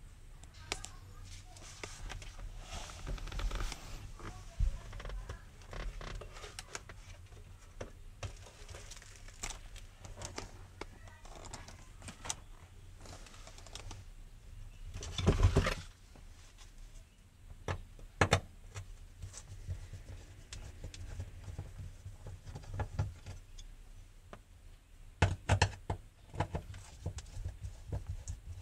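Handling and light tool work under the car's rear seat: scattered small clicks, knocks and rustling, with one louder knock about halfway through and a quick cluster of knocks near the end.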